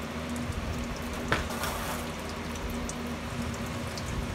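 Used engine oil from a 5.7 Hemi's oil pan draining and splashing steadily into a plastic catch pan, falling in several streams off the truck's underbody rather than in one clean stream. A single sharp click about a second in.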